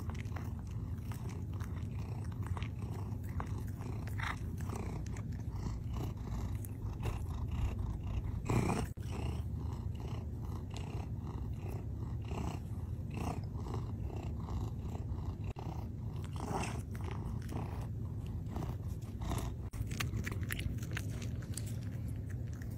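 Domestic cat purring steadily close by, with many short faint clicks over the purr and one brief louder sound about nine seconds in.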